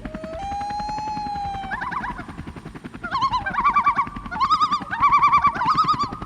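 A bird singing: held whistled notes, then from about two seconds in, phrases of fast warbling trills. Under the song runs a steady, rapid fluttering pulse.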